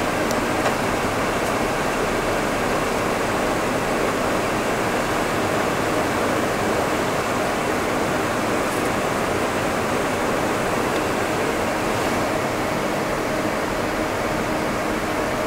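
Steady rushing cabin noise inside an Embraer E195 airliner's cockpit in flight: airflow and air-conditioning hiss with a faint steady hum beneath it.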